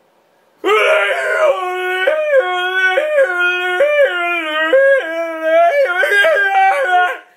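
A man yodeling: one long run of voice that flips rapidly back and forth between a low chest note and a higher falsetto note, starting about half a second in and breaking off just before the end.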